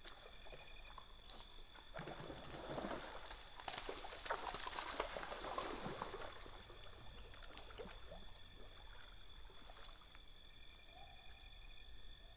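A hooked fish thrashing and splashing at the surface of a shallow creek, starting about two seconds in, loudest around the middle and dying away in the last few seconds as the fish tires.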